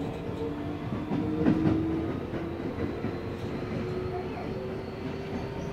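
Keio Series 5000 electric train running, heard from inside the car: a motor whine slowly rising in pitch over the rumble of the wheels on the rails, with a few track clicks about a second and a half in.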